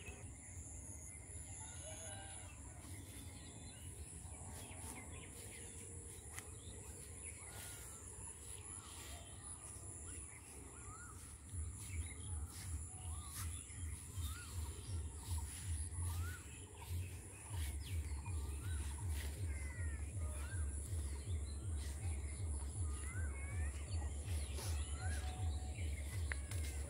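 Outdoor rural ambience: birds calling with short rising chirps over a steady high hiss, and a low rumble of noise on the microphone that grows louder about halfway through.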